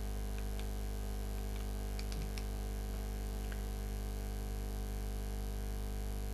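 Steady low hum, with a few faint ticks about two seconds in.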